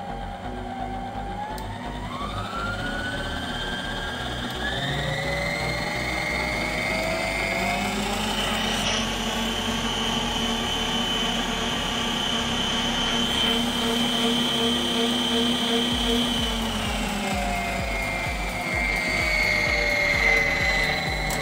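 Royalty Line PKM 2100BG stand mixer's motor running, its whine stepping up in pitch as the speed dial is turned up over several seconds. It holds steady at the higher speed, then falls back in pitch as the dial is turned down near the end.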